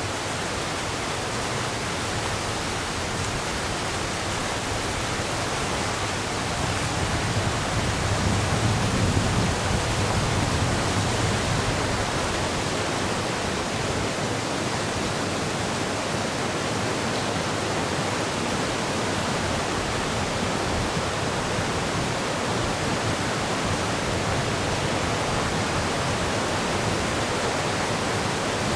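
Roar of the Shimanto River in flood, its fast, rain-swollen current making a steady rushing noise. A deeper, louder swell comes about seven seconds in and lasts a few seconds.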